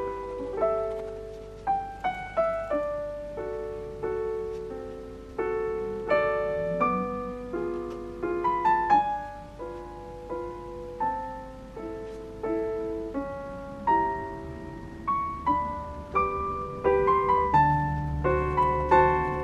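Background piano music: a gentle melody of single notes that strike and fade, with lower bass notes joining about two-thirds of the way through.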